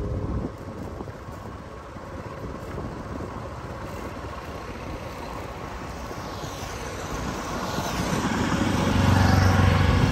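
Road traffic heard from a moving vehicle: steady road noise, with a vehicle's engine growing louder over the last few seconds and peaking just before the end.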